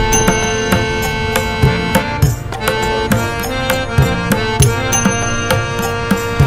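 Instrumental music with a steady drum beat under long held melodic notes.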